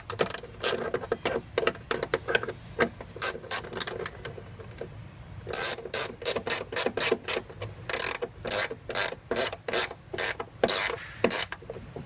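Socket ratchet clicking in quick back-and-forth strokes as it tightens a seat-belt anchor bolt, in two runs of rapid clicks with a sparser stretch of a couple of seconds in between.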